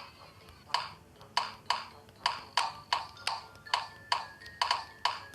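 A steady run of sharp, short ticks, about three a second, each dying away quickly. A faint thin tone sounds briefly in the second half.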